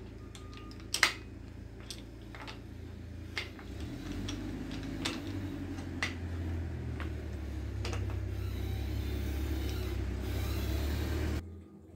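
Metal hand tool clicking and clinking against a bicycle's bottom bracket as it is worked with a wrench: several sharp clicks roughly a second apart. A low steady hum rises in the background from about a third of the way in and cuts off suddenly near the end.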